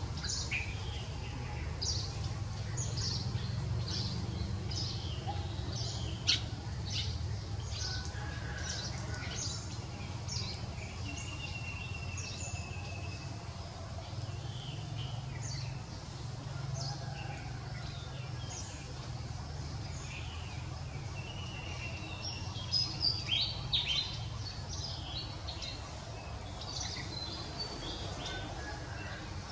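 Birds chirping, with many short high calls throughout and a louder flurry of chirps about three-quarters of the way through, over a steady low background rumble.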